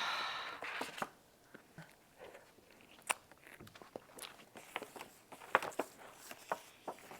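Quiet handling sounds as a strawberry cream cake is taken out of its packaging: a short rustle at the start, then scattered light clicks and taps of plastic and cardboard.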